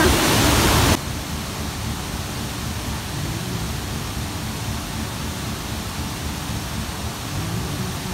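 Waterfall rushing loudly close by, cutting abruptly about a second in to a quieter, steady rush of falling water with a low rumble underneath.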